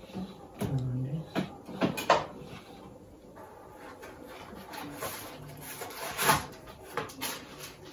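Stainless steel mixer-grinder jars being handled and set down on a table: scattered knocks and clicks, the sharpest about six seconds in, with a soft rustle in between.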